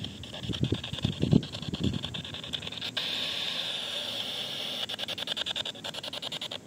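P-SB7T Spirit Box radio scanning the FM band: a hiss of radio static that starts about three seconds in and, near the end, breaks into rapid, even choppy stutters of about eight a second as it sweeps from station to station. A few low thuds come in the first two seconds.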